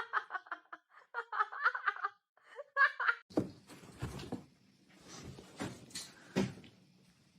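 A person laughing in short choppy bursts for about three seconds, then a few sharp knocks over a faint steady hum.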